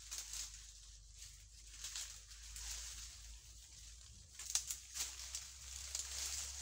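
Dry leaves and palm fronds rustling and crackling as a green mesh net is pulled out from under them and gathered up by hand, with a sharper crack about four and a half seconds in.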